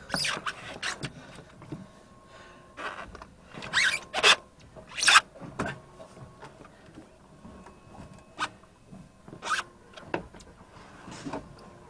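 Irregular knocks, clicks and rubbing of handling on a small fishing boat, with a few louder knocks about four to five seconds in, over a faint steady hum.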